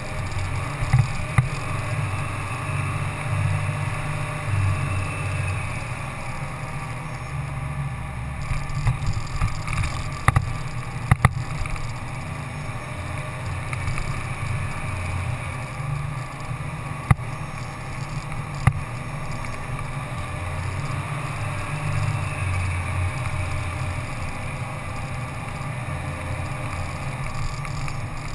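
Engine of an open off-road vehicle running steadily under way, with a low rumble, and a few sharp knocks as it goes over rough ground, several close together near the middle.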